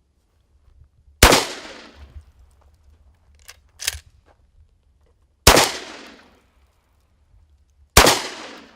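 Three gunshots from shotgun-type shells, about four and then two and a half seconds apart, each with a long echoing tail. A fainter sharp crack falls between the first two.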